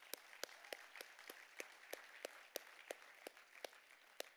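Faint applause from a seated audience, with one nearer pair of hands clapping about three times a second.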